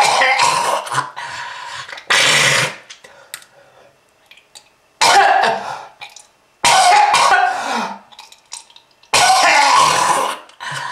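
A person's harsh, hacking smoker's cough: five loud coughing fits a couple of seconds apart, each with a strained, throaty voice in it.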